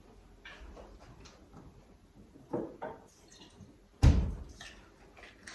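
A few light knocks and clatters from kitchen things being handled, with one sharper, louder knock about four seconds in.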